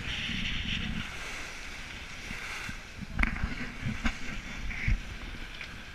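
Water rushing past the hull of a yacht sailing through choppy sea, with wind buffeting the microphone, and three sharp thumps about three, four and five seconds in.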